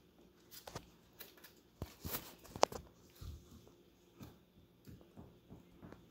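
Faint scattered taps and scuffles of Chihuahua puppies playing and moving about against a plastic crate and bedding, with one sharper click about two and a half seconds in.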